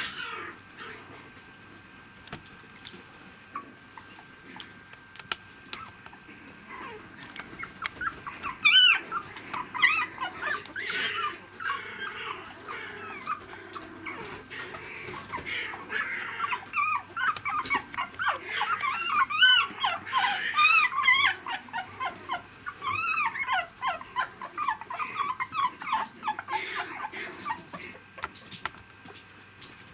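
Three-week-old poodle puppies whimpering and squeaking in short, high-pitched calls that rise and fall. The calls begin about a quarter of the way in and come thickest in the second half.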